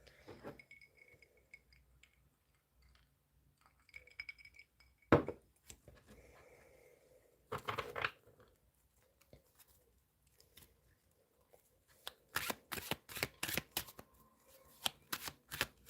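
Tarot cards being handled and shuffled: a sharp tap about five seconds in, a brief rustle near eight seconds, then a quick run of card snaps near the end.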